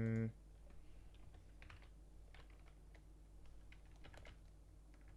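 Typing on a computer keyboard: scattered, irregular keystrokes in small clusters while code is entered. A steady held hum cuts off in the first moment.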